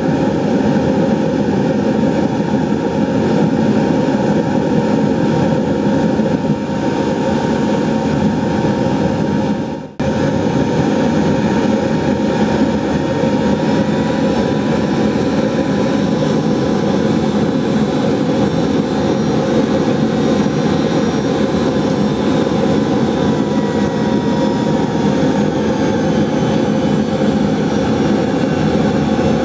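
Oil-fired foundry melting furnace burning with a compressed-air burner: a loud, steady roar, with a momentary break about ten seconds in.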